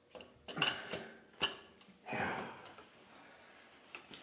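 Edelbrock four-barrel carburetor being set down onto the Edelbrock Performer intake manifold: a few short metal knocks and clinks in the first second and a half.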